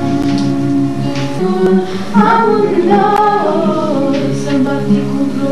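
A small group of men and women singing a folk-style song together. They hold one long note for about a second and a half, then the melody moves on through changing notes.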